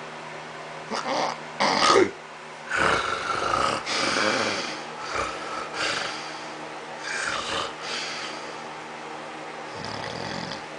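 Snoring in uneven bursts of snores and snorts, the longest running from about three seconds in to nearly five, over a steady low hum.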